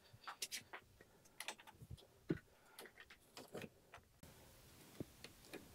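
Faint, scattered clicks and small knocks as the rail holder parts of a tabletop quilting frame are handled and its height is set, with a slightly louder knock a little over two seconds in.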